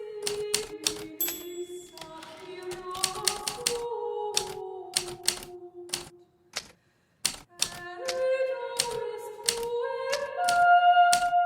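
Hermes Baby manual typewriter keys striking in quick, irregular runs of clicks, over soft melodic background music. About six seconds in, the typing and music pause for a second or so, with only a couple of isolated strikes, then both resume.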